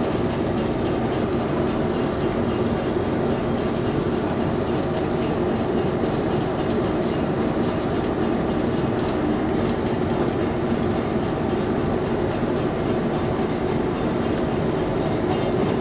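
Passenger trains running on rails: a steady rumble of wheels and running gear, with a thin steady high whine over it and a few faint clicks.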